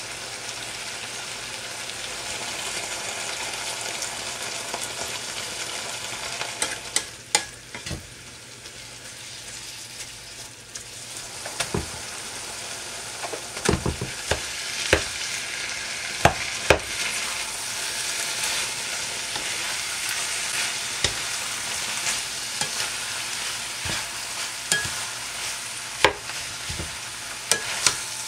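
Pork belly and kimchi sizzling in a nonstick wok as they are stir-fried, with a wooden spatula knocking and scraping against the pan. The sizzle drops for a few seconds partway through; cooked rice is then stirred in, and the knocks come thick in the second half.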